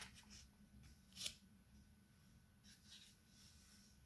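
Near silence: faint room hiss and hum, with a brief soft rustle about a second in and a couple of fainter ones near the end.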